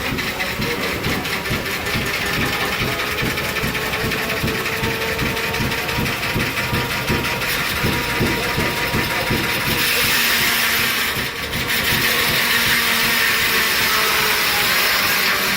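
Gasoline engine running a sawmill, beating out a steady train of low exhaust pulses, a few each second. About ten seconds in, a louder high whirring hiss joins, dropping out for a moment before carrying on, typical of the saw running through a log.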